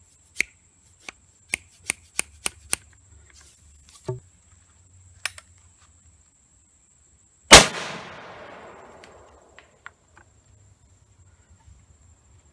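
About seven sharp taps in the first three seconds as a wooden dowel seats a round ball in the shotgun shell. A little past halfway, a 20 gauge single-shot shotgun fires a hand-loaded shell of Pyrodex with a .60 caliber round ball: one loud shot with a long echoing tail of about two seconds.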